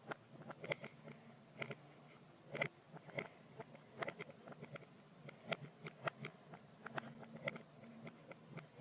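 Light, irregular clicks and taps, a few each second, from Play-Doh and small toy pieces being handled, played in reverse.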